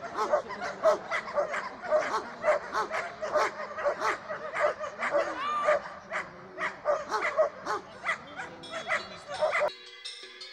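German Shepherd barking rapidly and without a break, about two to three barks a second, while holding the helper in protection work. Near the end the barking cuts off suddenly and music with plucked notes takes over.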